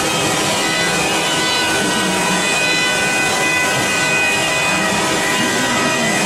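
Multi-spindle CNC wood router (OMNI 12S rotary carver) running, its spindles whining steadily at several pitches as the bits carve the turning wooden blanks.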